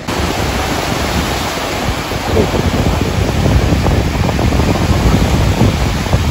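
Sea surf breaking and washing onto a sandy beach in a steady rush, with wind buffeting the microphone.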